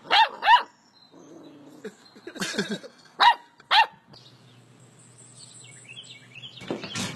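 Black puppy barking in short, high yappy barks: two in quick succession at the start and two more about three seconds in, with a person laughing between them.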